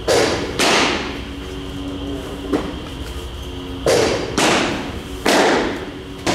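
Baseballs smacking into a catcher's mitt: a series of sharp pops, each with a short echo, two close together near the start and three more in the second half.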